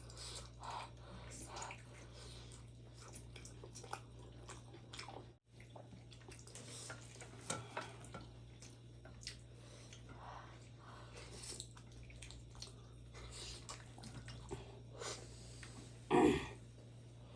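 Close-miked chewing and wet mouth sounds of a person eating chicken momos, with many small scattered clicks and smacks over a steady low hum. A brief louder sound stands out near the end.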